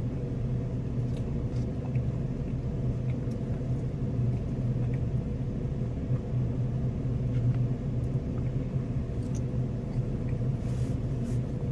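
Steady low hum of an idling car engine, with a few faint clicks.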